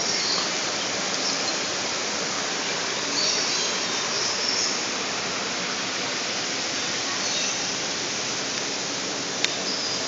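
Steady rushing of a rainforest creek's waterfall, with a few faint high chirps in the middle and a single sharp click about nine seconds in.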